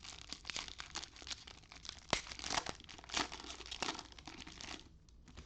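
Cellophane wrappers of trading card packs being torn open and crinkled by hand: a dense run of crackling that thins out near the end.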